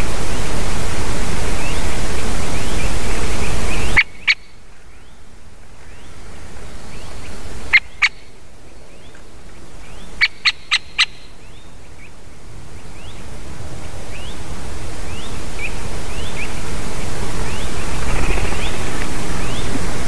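Outdoor forest sound through a nest-camera microphone: a steady hiss of wind that drops away suddenly about four seconds in and slowly builds back up over the second half. In the quieter stretch come a few sharp short calls or clicks, two close together near the middle and a quick run of four soon after, over faint short rising chirps of small birds that recur throughout.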